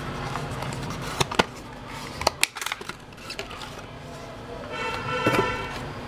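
Hands handling packaging: a few sharp clicks and taps as a cardboard box and a plastic blister pack are handled, and a brief pitched squeak about five seconds in.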